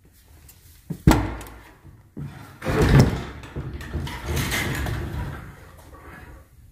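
Old wooden door being pushed open: a sharp knock about a second in, then a longer scraping sound as the door swings, fading out near the end.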